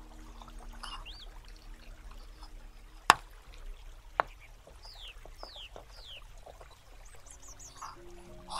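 Small knife working a miniature carrot on a wooden board, with two sharp clicks of the blade on the board about three and four seconds in. Birds chirp in the background over a faint trickle of water.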